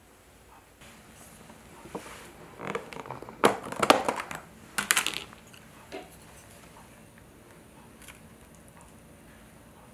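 Clear plastic takeaway salad container being opened, its lid crackling and crinkling in a run of bursts about three to five seconds in, with a few lighter plastic clicks around it.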